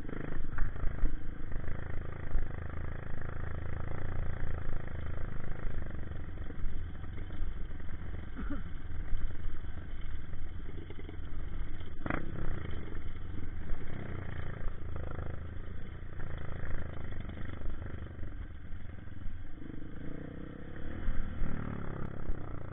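Honda CRF150 trail bike's single-cylinder four-stroke engine running under way over a rough dirt track, heard through a helmet-mounted camera with wind noise and rattling. A sharp knock sounds about halfway through.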